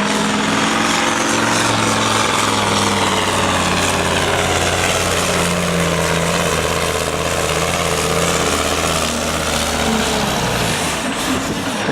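Pulling truck's engine at full throttle on a pull run, its note sinking slowly as the load builds, then falling away near the end as the run finishes.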